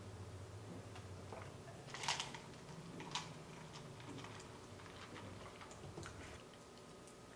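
Quiet chewing of a mouthful of egg salad sandwich, with a sharp click about two seconds in and another soon after. Scattered light ticks follow near the end as a plastic cup of iced drink is picked up.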